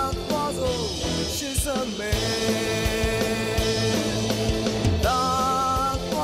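Live rock band: a male singer's amplified voice over electric guitar and a drum kit, with a long held sung note near the end.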